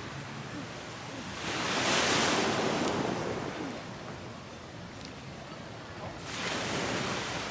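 Ocean waves breaking and washing up the beach: two surges of surf about four seconds apart, the first one louder, over a steady wash of sea noise.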